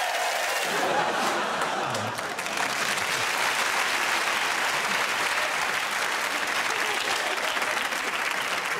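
Studio audience applauding, a steady, dense clapping throughout.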